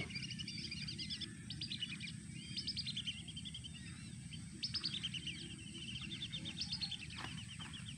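Birds calling in repeated fast chirping trills, some rising and some falling, over a steady low rumble.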